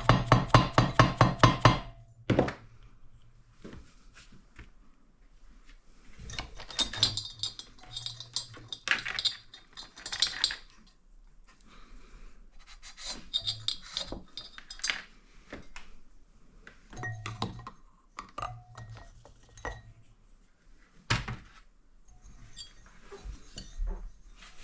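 Metal tools and engine parts clinking and knocking as they are handled, in scattered short clinks. It opens with a fast, even run of clicks that stops about two seconds in.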